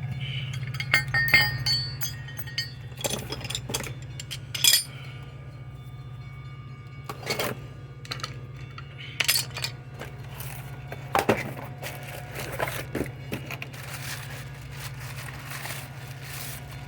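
Scattered metallic clinks and clanks of tools and brake parts being handled and set down, loudest in the first few seconds, over a steady low hum.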